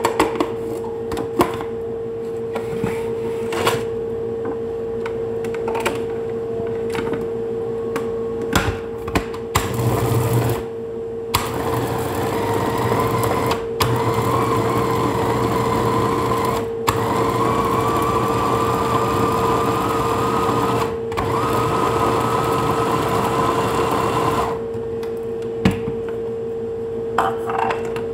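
Small electric food chopper blending tomatoes, chili, parsley, salt and lemon into a salad purée. It runs in pulses for about fifteen seconds, with four short breaks, and stops a few seconds before the end. Before it starts there are scattered light clicks and knocks, and a steady hum sits under everything.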